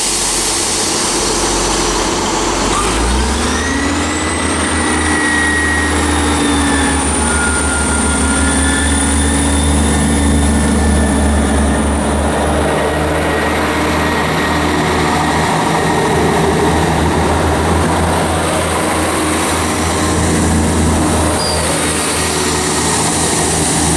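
Class 158 diesel multiple unit pulling away from a station platform. Its underfloor diesel engines rev up about three seconds in, with a rising whine, then run on loud and steady as the train accelerates.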